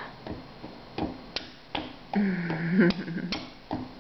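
Irregular sharp taps and clicks, about eight of them, spaced unevenly. A short vocal sound comes about two seconds in.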